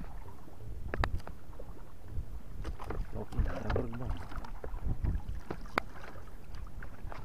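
Water slapping against the hull of a small wooden boat, with wind on the microphone and a few sharp clicks, one about a second in and another near the end.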